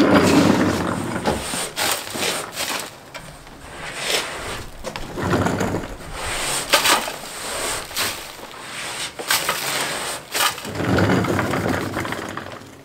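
Gloved hands packing and smoothing a wet plaster-and-cement mix on a board, with irregular scraping and crunching and scattered sharp clicks and knocks.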